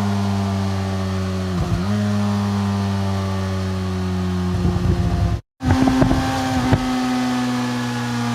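Motorcycle engine running with a steady drone whose pitch sinks slowly as it decelerates. The sound roughens briefly about four and a half seconds in, cuts out for a moment, then carries on rough for about a second before settling back into the drone.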